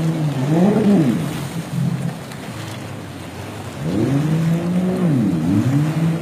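Jet ski engine revving up and down, its pitch rising and falling again and again, over a steady wash of surf and wind. The engine fades about a second and a half in and picks up again near four seconds.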